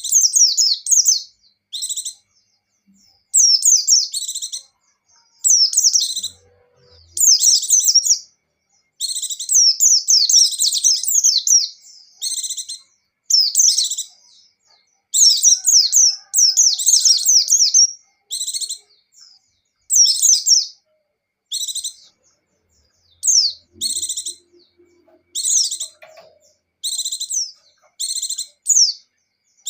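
White-eyes (pleci) singing in rapid, high twittering phrases. The phrases come one after another, each lasting about a second or two with short pauses between them: the vigorous song that keepers call gacor.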